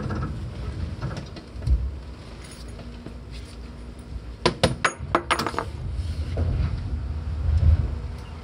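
Seibu 4000 series electric train running, heard near the line breaker: a low rumble with a faint steady hum. About halfway through comes a quick cluster of sharp metallic clicks, and the rumble swells again near the end.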